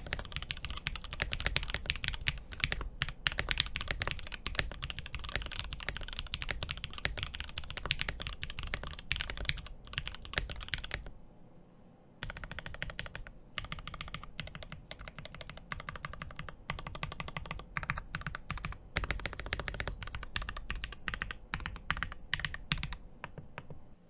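Continuous fast typing on a Portico75 mechanical keyboard with Hippo linear switches and PBT keycaps, its case damped with silicone and felt: a dense stream of key strokes that stops for about a second near the middle and then carries on.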